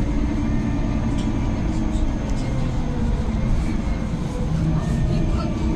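Solaris Urbino 12 city bus heard from inside the cabin while driving: a steady engine and road rumble with faint steady whine tones and a few light rattles.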